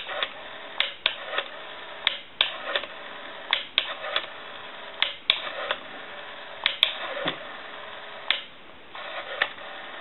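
Rotary telephone dial being dialled digit by digit. Sharp clicks come in loose groups of about three, every second and a half or so, as the dial is wound round to the finger stop and released to spin back.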